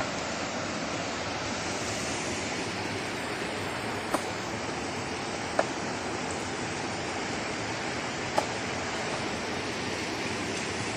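Rushing mountain stream tumbling over rocks in small rapids, a steady even rush of water. Three short, sharp ticks stand out briefly above it, about four, five and a half, and eight and a half seconds in.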